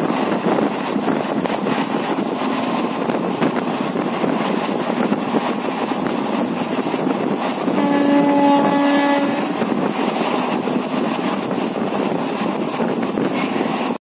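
Indian Railways passenger train running at speed, heard from the open coach doorway: a steady rush of wind on the microphone over the rolling of the train. About eight seconds in, a horn sounds once for nearly two seconds.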